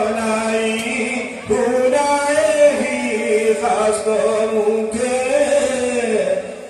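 Several voices chanting a devotional hymn together in long held notes that rise and fall, with short breaks for breath about a second and a half in and near the end.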